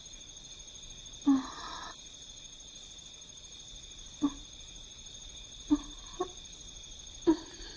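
Steady chirring of crickets, broken by five short knocks or thumps at uneven intervals, the first about a second in followed by a brief rustle.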